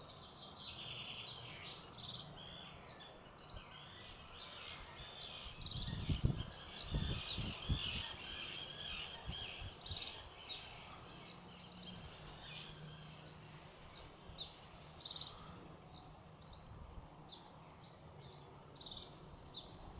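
Male reed bunting singing: short, high, downward-sliding notes, repeated about twice a second in brief phrases. A few low thumps come about a third of the way through.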